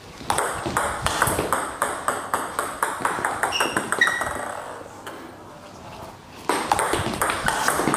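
Table tennis ball clicking off bats and bouncing on the table in a quick run of hits, starting from a fast, long side-backspin serve. The clicks thin out and fade about halfway, with a couple of brief squeaks, then pick up again near the end.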